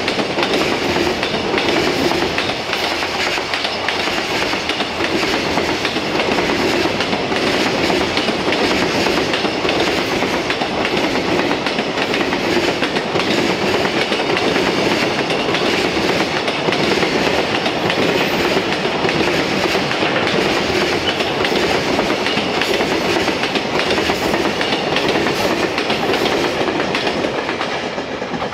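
Freight train of container wagons rolling past on the rails, a steady wheel-and-rail noise that fades near the end as the last wagons pull away.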